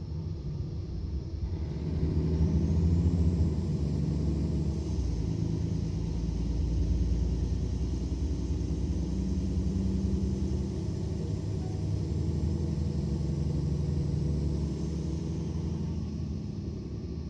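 Mercedes-Benz Citaro O530 city bus's diesel engine running with a deep rumble. It picks up about two seconds in, with a high whine that rises and then holds steady, and it eases off near the end.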